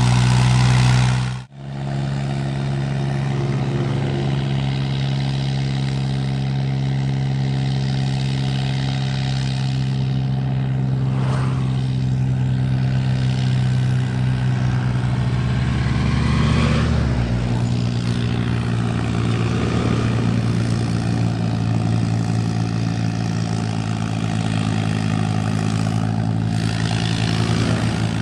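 New Holland 3630 tractor's three-cylinder diesel engine running at steady revs while pulling two loaded sugarcane trolleys. There is a brief dropout about a second and a half in.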